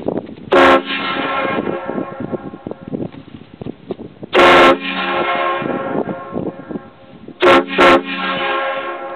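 Homemade PVC train horns, a set of four fed by compressed air, blown in four short blasts: one about half a second in, one around four and a half seconds, and two quick ones close together near the end. Each blast sounds several notes together, is pretty loud, and hangs on fading for a second or two after it.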